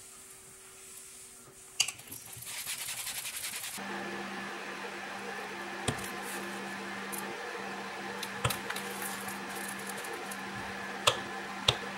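Handling of a leather wallet and its brass press stud on a workbench: a few sharp clicks and taps, with a stretch of rapid fine ticking early on. From about four seconds in, a steady low hum sits underneath, with two sharp clicks close together near the end.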